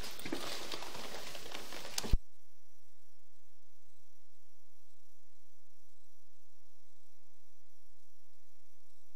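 Scratchy handling noise with small clicks, cut off by a sharp click about two seconds in, then a steady electrical hum on the sewer inspection camera's recording line.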